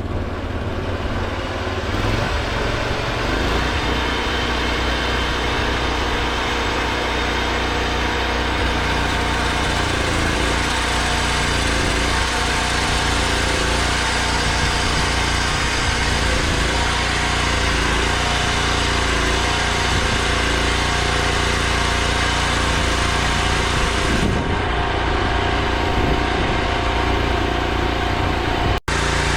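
Chainsaw mill running steadily under load as the chain rips lengthwise through an oak log, with a brief dropout near the end.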